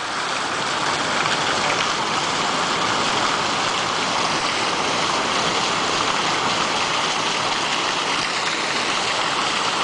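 Water from a large bronze fountain's many jets spraying and falling into its basin: a steady splashing rush of water.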